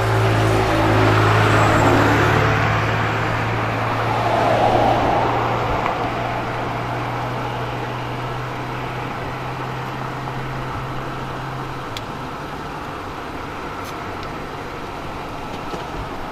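Road traffic: passing vehicles rush by, loudest in the first six seconds, over a steady engine hum that stops about twelve seconds in.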